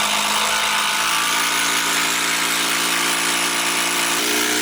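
Power drill running steadily under load for several seconds, its motor pitch dropping slightly about four seconds in.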